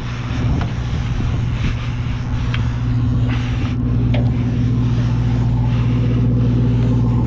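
Sportfishing boat's engine running as a steady low drone, growing a little louder about three seconds in, with a few faint clicks and knocks over it.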